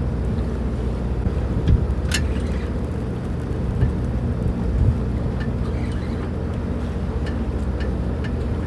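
Fishing boat's engine running steadily with a low hum, with a few faint clicks and knocks over it.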